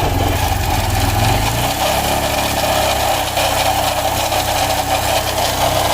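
Single-cylinder TVS commuter motorcycle engine running with its bad noise, a harsh, broken-sounding racket from inside the engine. The noise has outlasted a full engine rebuild and patching of the silencer.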